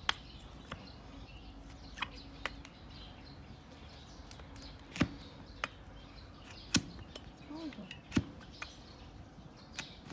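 Large flat hoof-paring blade cutting into a donkey's hoof wall, giving sharp separate cracks about nine times at uneven intervals as pieces of horn are sliced off.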